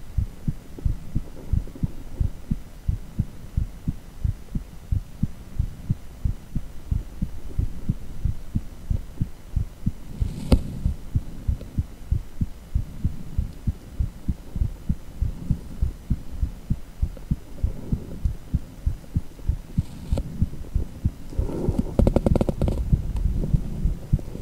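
Heartbeat sound from a cardiac ultrasound (echocardiogram): a steady rhythm of low, evenly spaced throbbing beats. A sharp click comes about ten seconds in, and the beats turn louder and scratchier for a couple of seconds near the end.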